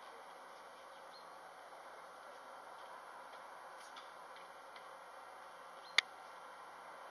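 Faint outdoor ambience: a steady hiss with a few light, scattered ticks and one sharp click about six seconds in.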